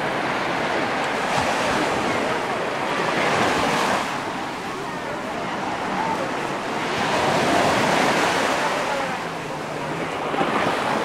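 Mediterranean surf breaking and washing up a sand beach, swelling and easing twice.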